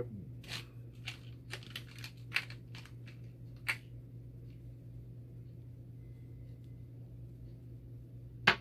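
Small parts being handled in a clear plastic parts tray: a run of light clicks and taps in the first few seconds, then a few faint ticks, and one sharp, louder click near the end, over a steady low hum.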